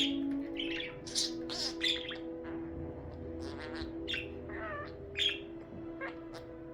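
Pet budgerigar chattering in a string of quick chirps and short squawks, with a few steady low tones beneath.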